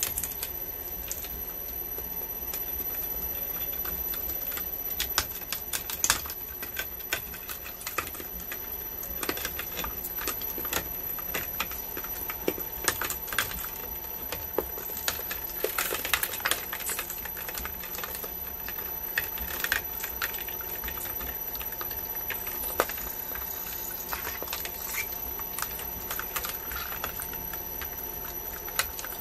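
Twin-shaft shredder running, its motor giving a steady hum with a high whine, under a stream of irregular clicks and knocks from the turning blades as they catch at a whole raw chicken that has not yet been pulled in. The clicks thicken for a few seconds around the middle.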